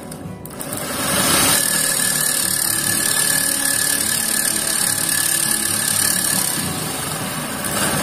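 Small brushed DC motor whirring at speed as it spins a washing-machine motor used as a generator. It speeds up about a second in, runs steadily with a high whine, and eases off near the end.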